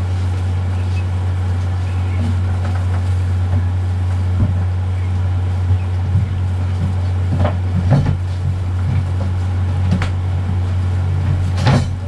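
A sheet of plywood knocking and scraping against the wooden floor as it is laid in and test-fitted. There are several sharp knocks from about four seconds in, over a steady low hum.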